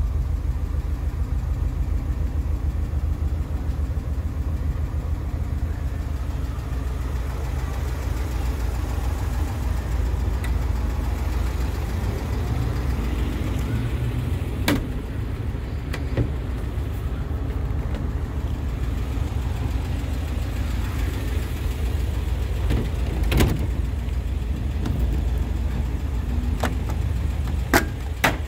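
Volkswagen Bus engine idling steadily. A few sharp knocks sound over it about halfway through and again near the end.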